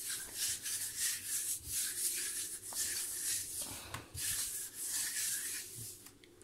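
A bare hand rubbing cooking oil across a granite countertop in repeated strokes, a soft swishing that dies away near the end.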